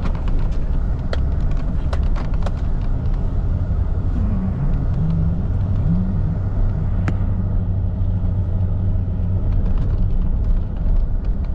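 Car driving: steady engine and road rumble, with the engine note shifting up and down a few times around the middle, and scattered light clicks.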